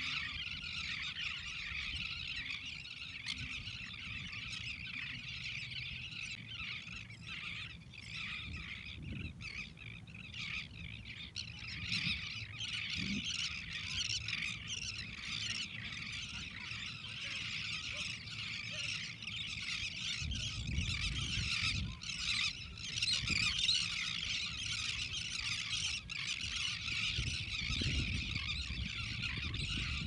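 A large flock of terns calling without pause, a dense chorus of many overlapping high chirps and squawks. Under it a low rumble comes and goes, strongest about twenty seconds in and again near the end.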